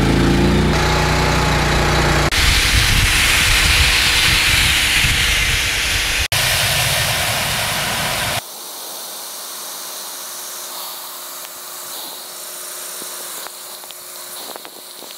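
A seed tender's engine runs, and about two seconds in a loud steady hiss of treated soybean seed pouring from the conveyor spout into a planter's seed box takes over. About eight seconds in the pouring becomes quieter and thinner, with a faint hum under it.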